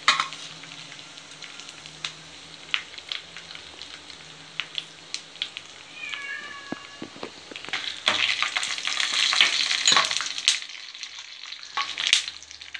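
Black peppercorns and cumin seeds frying in hot ghee and oil in a small nonstick pan for a tempering: a steady sizzle with scattered crackling pops. The sizzle grows louder about eight seconds in and eases again near the end.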